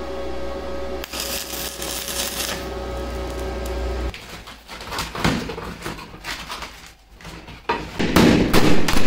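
Stick (arc) welding of steel hex nuts: a steady crackling hiss over the welding machine's hum, cutting off about four seconds in. Scattered clicks follow, then from about eight seconds a run of loud hammer strikes on the welded nut panel.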